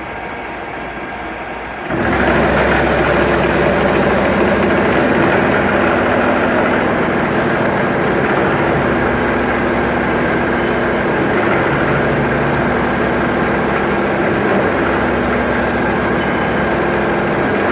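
Conventional milling machine with a low hum at first; about two seconds in its motor starts and runs on with a loud, steady machine noise and several humming tones.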